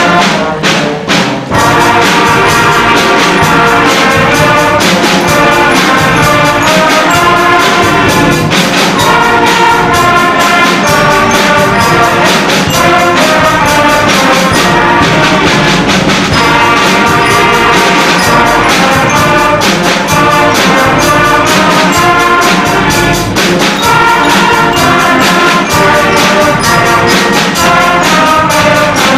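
Seventh-grade concert band playing a full-ensemble piece: clarinets and brass together over percussion, loud, with a steady rhythmic beat.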